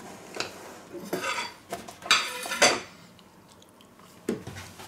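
A spatula scraping and knocking against a stainless steel mixing bowl as whipped cream is folded into the filling, in a run of scrapes from about one to three seconds in, with a last knock near the end.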